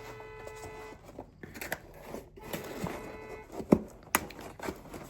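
Small objects and packaging being handled on a table: light rustles and clicks, with a sharp knock a little under four seconds in. A faint steady tone sounds for about a second at the start and again around the middle.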